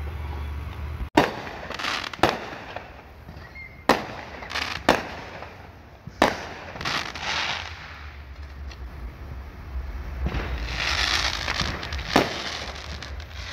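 Aerial fireworks going off: a string of sharp bangs a second or two apart, the loudest about a second in, with a stretch of hissing crackle shortly before another bang near the end.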